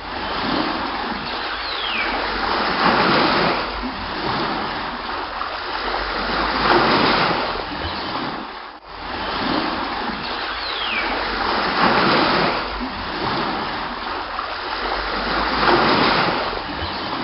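Sea water splashing and sloshing, with waves swelling and easing every few seconds. A brief falling whistle is heard twice.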